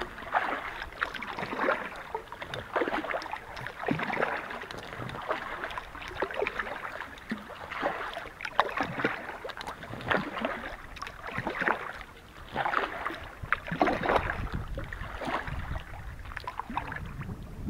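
Kayak paddle strokes splashing and dripping in calm water, roughly one stroke a second, from an inflatable kayak being paddled along.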